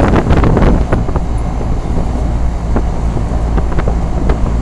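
Lennox Merit Series 1.5-ton heat pump outdoor unit running in cooling mode: a steady low hum from the compressor and condenser fan. There is a patch of crackling noise in the first second.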